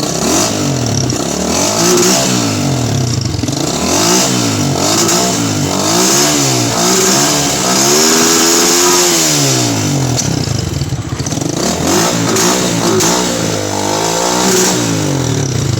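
Stock Tauro Racing 150cc single-cylinder motorcycle engine with a Papito R aftermarket muffler, revved again and again from idle in short blips. Its pitch rises and falls each time, with one longer, higher rev about halfway through.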